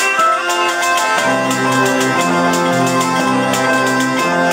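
Southern Italian folk music: zampogna bagpipes and a ciaramella shawm play a melody over held drone notes, with a jingled frame drum tapping a steady beat. Lower held notes come in about a second in.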